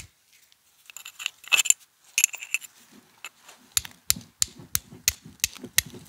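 A heat-treated high-carbon steel striker card struck against a piece of flint to throw sparks. First come a few short rasping scrapes, then from a little past halfway a run of quick sharp strikes, about three a second.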